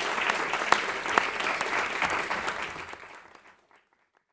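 Audience applauding, a dense patter of many hands clapping that fades away to silence about four seconds in.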